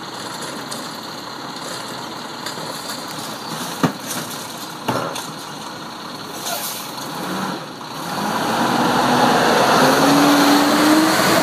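Automated side-loader garbage truck's diesel engine running, with two sharp knocks about four and five seconds in. From about eight seconds in the engine grows louder, its pitch slowly rising, as the truck drives up close.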